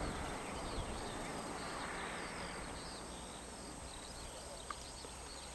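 Small birds chirping and singing over a steady rush of wind on the microphone, the rush slowly easing.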